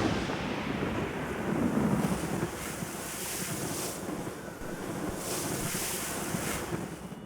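Wind blowing over a mountain, a steady rushing noise with two gusts of hiss, about three and six seconds in.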